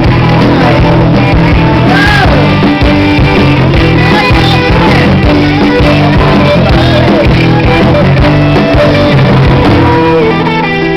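Live rock band playing loud music, with guitar and sliding melodic lines over a steady bass.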